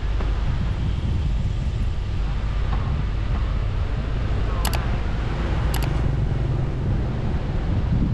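Steady wind rumble on the microphone of a camera moving along a street, mixed with road and traffic noise. Two short sharp clicks come about a second apart midway through.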